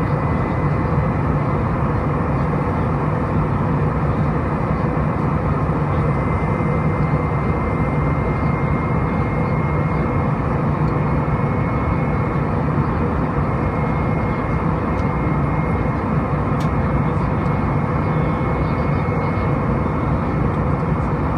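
Steady drone of an Airbus A319 in flight, heard inside the cabin over the wing: its CFM56-5B jet engines and the rushing airflow, deep and unbroken, with a faint steady high whine on top.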